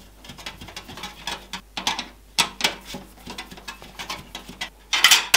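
Irregular light clicks and taps of hands handling a graphics card and its packaging, with a louder clatter near the end.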